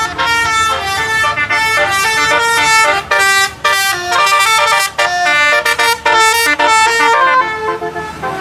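Bus 'telolet' multi-tone horn playing a quick melody of short notes that change pitch in steps, ending near the close.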